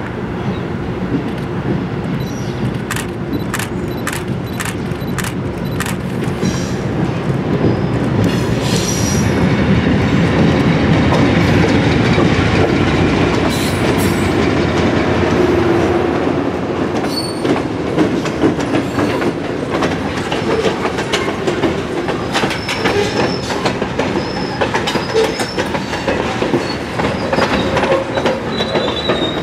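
Two GE B23-7 diesel-electric locomotives, each with a 12-cylinder engine, pull a freight train past, loudest about ten to fifteen seconds in as they go by. Then covered hopper cars roll past, with the wheels clicking over the rail joints and squealing in the curve.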